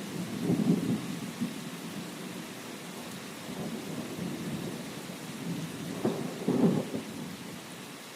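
Steady rain with low rumbles of thunder. Two louder rolls come through, one about half a second in and one near the end.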